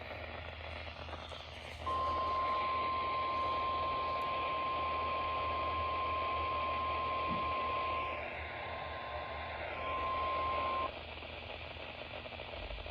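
NOAA Weather Radio 1050 Hz warning alarm tone received over static hiss, sent as the weekly test of the alarm. It is a single steady tone, about nine seconds long, that starts about two seconds in, weakens briefly near its end, then cuts off sharply.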